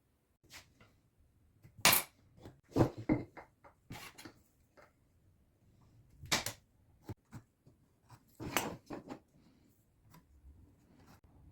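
Scattered sharp knocks and clatters of workshop handling, likely iroko box parts and hand tools being set down and moved on a workbench. The louder knocks fall about two seconds in, near three seconds, around six and a half seconds and around eight and a half seconds, with lighter clicks between.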